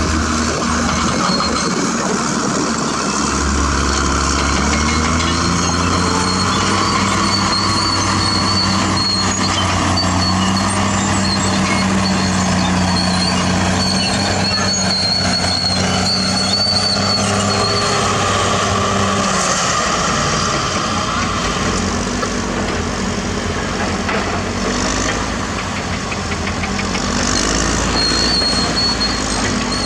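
CAT D6R bulldozer's diesel engine running under load, its pitch rising a few seconds in, holding, then dropping back near two-thirds of the way through, with a high thin squeal coming and going over it.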